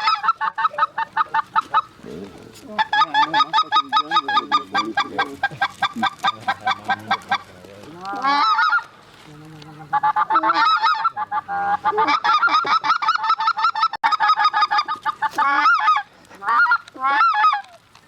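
Goose honking in fast, regular runs of short clucks, about seven a second, broken by a few rising drawn-out notes.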